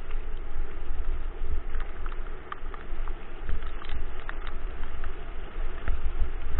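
Dog-pulled kick scooter rolling fast over a leaf-strewn dirt trail: a steady rumble of wheels and wind on the scooter-mounted camera, with many scattered clicks and rattles.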